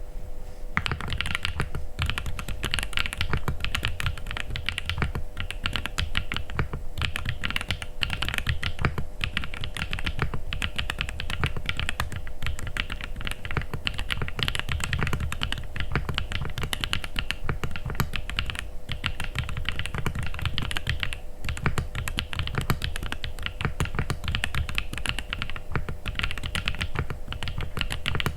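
Continuous fast typing on a mechanical keyboard, an AJAZZ AC067 fitted with RK Misty Rain linear switches and Cherry-profile keycaps, the keystrokes coming in quick runs broken by brief pauses.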